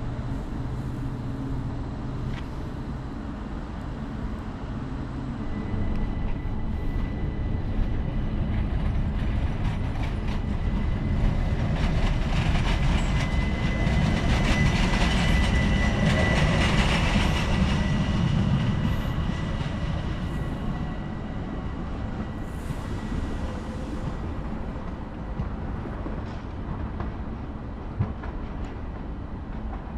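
ÖBB S-Bahn electric multiple unit departing and running past, a rumble of wheels on the rails with a thin steady high-pitched whine. It grows loudest around the middle and fades in the second half.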